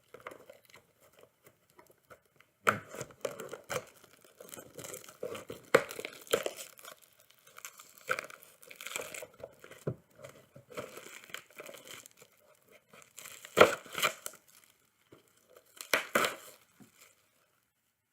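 Trading card pack wrappers crinkling and being torn open by hand, in irregular rustles and rips, with a couple of louder sharp tears about three-quarters of the way through.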